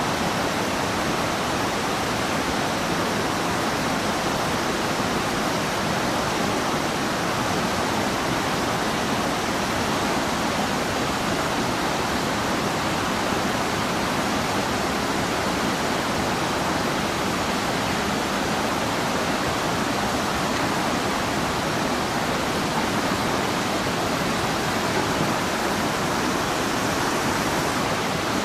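Whitewater rapids of a steep, rocky creek rushing over boulders and ledges: a steady, unbroken rush of water.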